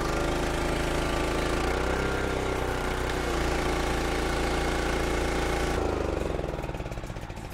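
Small gasoline engine of a pressure washer running steadily while the wand sprays with a high hiss. About six seconds in the spray stops and the engine is shut off, its sound dying away: the start-up check before the acid goes down.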